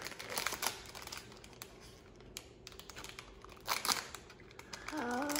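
Plastic blind bag crinkling and tearing as it is opened by hand, in scattered short crackles with a louder burst a little under four seconds in. A brief voice sounds at the very end.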